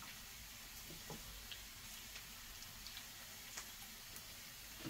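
Grated radish being squeezed by hand over a glass dish: faint, scattered wet ticks and drips as the pressed-out juice falls into the dish.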